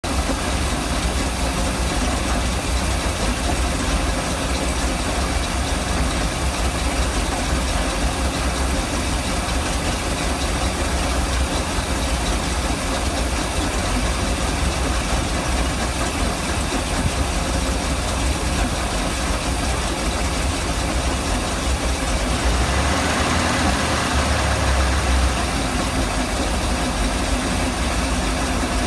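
MerCruiser 454 big-block V8 marine engine idling roughly and steadily. About three-quarters of the way through it runs a little louder for a few seconds.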